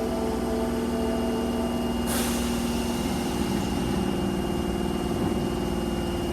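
Steady hum of a standing Osaka Metro Tanimachi Line 22 series subway car, several held tones together. A short hiss of air about two seconds in.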